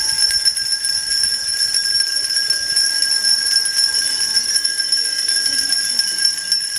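Many hand-held bells rung together without pause, a dense steady jangle with sustained high ringing tones.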